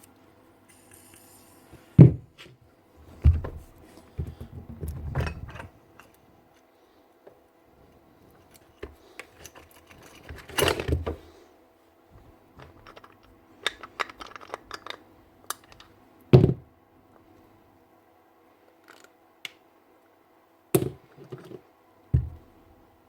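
Scattered knocks, clunks and light clicks of a mixing drill's gearbox parts and tools being handled during disassembly, with quiet gaps between them.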